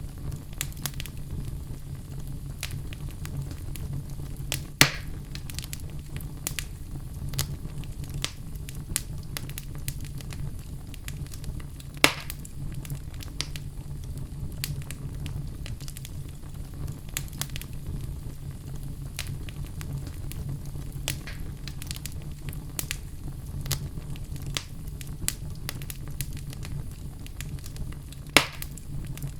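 Wood fire burning in a fireplace: a steady low rush of flame under constant small crackles, with three louder pops from the logs, about 5 seconds in, about 12 seconds in and near the end.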